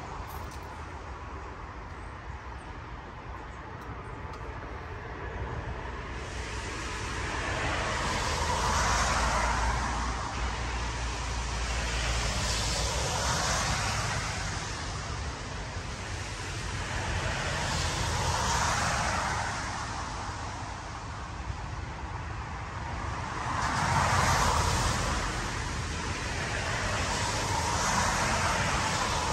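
Road traffic passing: car after car, each a tyre hiss over a low rumble that swells and fades, about five in a row after the first few quiet seconds.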